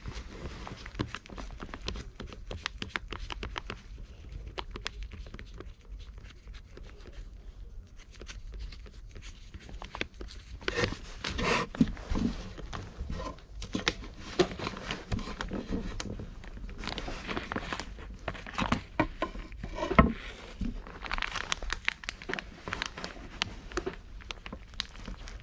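Plastic food pouch crinkling and rustling in a gloved hand while a cat licks and eats from it: irregular small clicks and rustles, louder in clusters around the middle.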